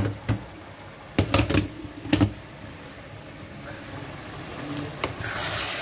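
Metal cookware knocking and clanking on the stovetop, several sharp knocks in the first two and a half seconds. A hiss of steam from a hot pot sets in about five seconds in.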